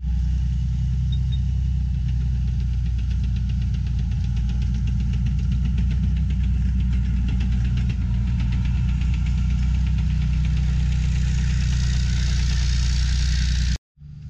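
Leopard 2A6 tank's V12 diesel engine running steadily, with a rapid rattle of track links as the tank rolls. The sound cuts off suddenly near the end.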